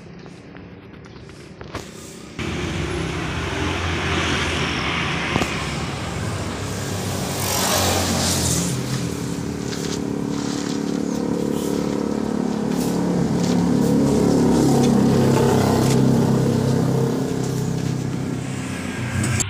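A motor vehicle's engine running close by, starting suddenly about two seconds in and running steadily, swelling around the middle. A few light knocks come before it.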